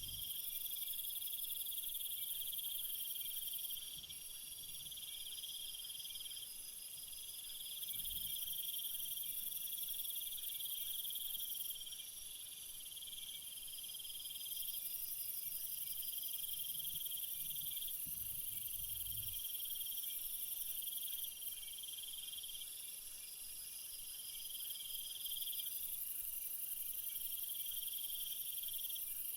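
A chorus of insects chirping in high-pitched, overlapping trills, the louder trills swelling and fading every few seconds.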